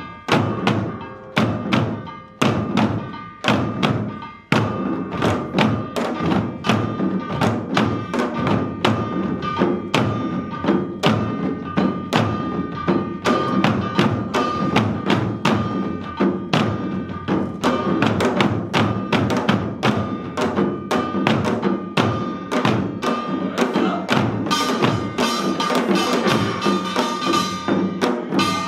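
Samulnori percussion ensemble playing janggu hourglass drums and buk barrel drums, with a brass gong's ringing tone held over the strokes. The strokes come slow and spaced for the first few seconds, then the rhythm turns fast and dense from about five seconds in.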